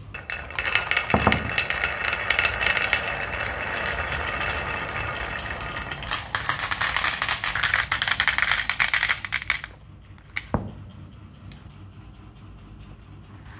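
Glass marbles rolling and clattering down a wooden zigzag marble-run slope and dropping into a plastic toy dump truck's bed, a dense rattle of clicks with a short dip about six seconds in. A single sharp knock follows about a second after the rattle stops.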